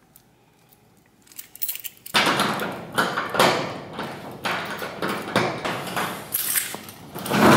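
A storage unit's metal roll-up door being opened, rattling and clattering with sharp knocks, starting about two seconds in and turning louder and steadier right at the end.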